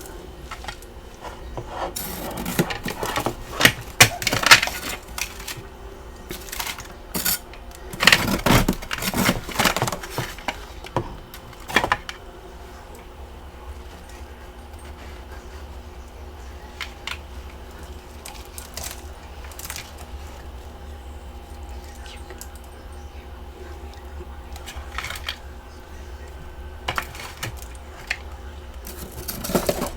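Chunks of freezer frost being bitten and chewed close to the microphone: clusters of sharp, crisp crunches about two seconds in and again from about eight to twelve seconds, then scattered single crunches and a few more near the end, over a faint steady hum.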